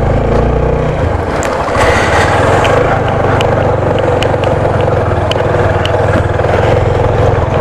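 Motorcycle engine running at low road speed on a rough dirt and gravel road, with steady noise over it and scattered small ticks.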